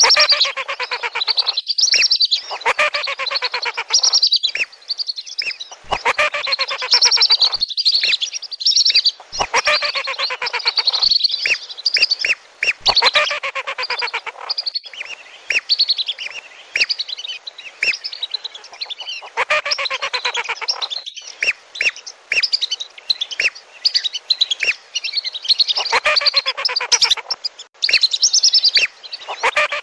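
A flock of whistling ducks (lesser and wandering whistling ducks) calling in a loud, dense chorus of rapid, repeated high whistles, coming in bouts of a few seconds with short breaks between; a lure call for these ducks.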